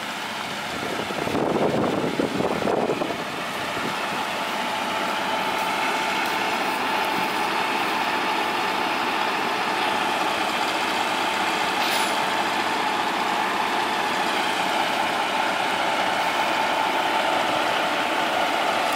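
Manitex boom truck's diesel engine running steadily while the crane works, with a steady whine over it. A brief louder noise comes about two seconds in, and a single click later on.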